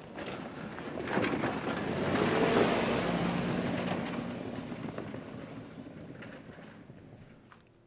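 An off-road SUV driving along a dirt trail: engine and tyre noise swells to a peak about two and a half seconds in, then fades out.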